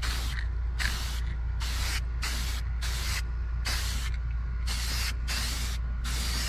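Aerosol spray-paint can spraying in short bursts, a hiss about once a second, each lasting under half a second.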